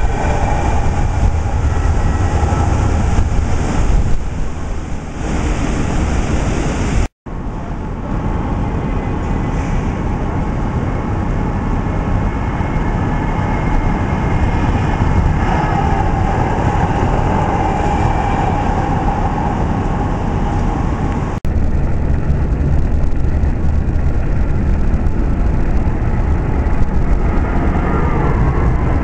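Houston METRORail light-rail trams running along a street trackway: a steady rush of noise with a deep rumble and a faint whine over it. The sound breaks off sharply twice, about seven seconds in and again about two-thirds through.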